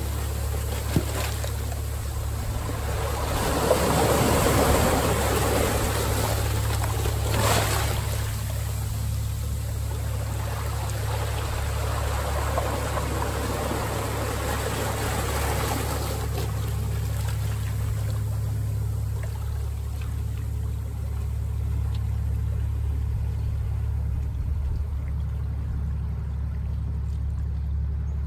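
Ocean surf washing in, swelling in the first half with the biggest surge about seven seconds in, then easing, over a steady low rumble of wind on the microphone.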